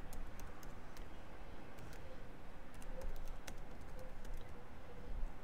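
Computer keyboard keys clicking at an irregular pace as someone types a line of text.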